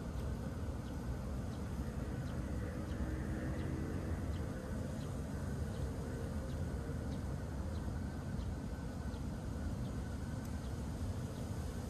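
Domestic cat purring steadily, a continuous low rumble, as it is stroked and relaxed.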